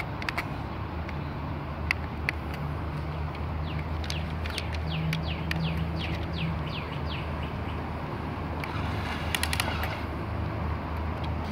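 Radio-controlled toy excavator running with a low steady hum that swells and eases as the boom and bucket move, while birds chirp throughout in quick descending notes. A short cluster of clicks comes about nine seconds in.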